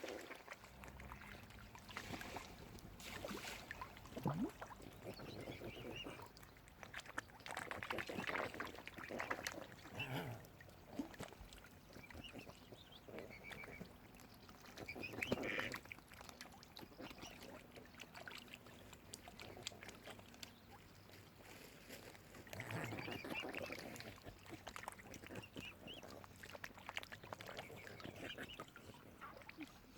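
Waterfowl calling on and off, with short calls and louder bursts about eight seconds in, around fifteen seconds and again around twenty-three seconds.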